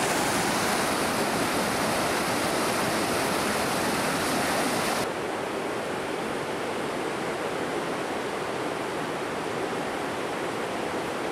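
Fast glacial river rushing over stones in a steady flow of water noise. About five seconds in it drops a little in level and loses its hiss.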